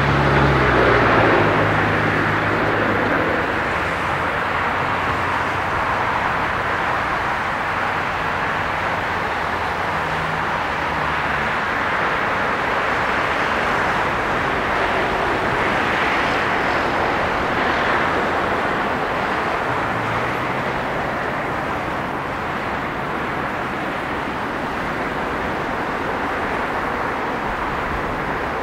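Jet noise from a Boeing 777-200ER airliner: a steady broad rush, loudest at the start and slowly fading.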